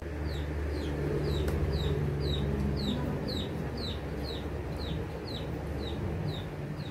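A chick peeping: a steady run of short, high, downward-sliding peeps, about two a second, over a low steady background hum.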